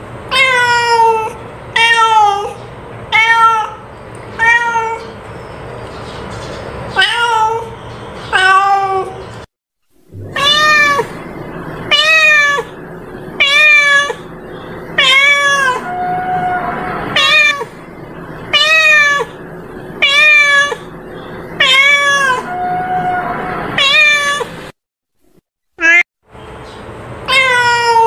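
A domestic cat meowing over and over: about twenty short, pitched meows, roughly one a second, broken by two brief silent gaps.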